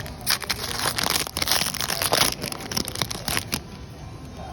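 Foil wrapper of a Pokémon card booster pack crinkling and tearing as it is opened: a quick run of sharp crackles that stops about three and a half seconds in, over a steady low rumble.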